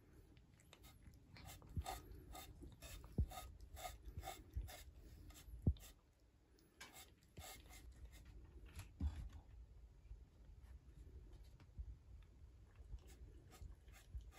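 A cat crunching dry kibble from a feeder bowl: faint crisp crunches at about three a second, in two spells, with a few dull knocks among them.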